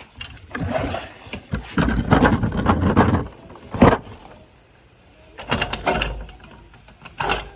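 Stuck bolt of an Allen Sports bike rack being worked out with channel-lock pliers: metal scraping and rattling in irregular bursts, with a sharp click about four seconds in.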